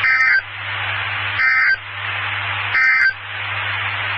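NOAA Weather Radio SAME end-of-message data bursts relayed over an FM repeater: three short warbling two-tone digital bursts about 1.4 s apart, marking the end of the alert message. Steady radio hiss fills the gaps between them.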